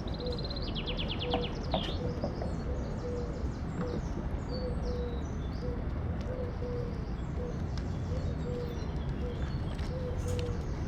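Birds singing outdoors: high chirps and a quick trill about a second in, then scattered twittering. Under them, short low notes repeat about once or twice a second, like a dove cooing, over a steady low rumble.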